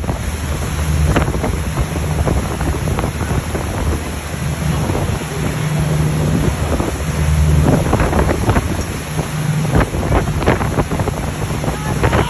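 A boat under way: its engine runs with a steady low hum beneath the noise of the wake churning behind the stern, with wind on the microphone.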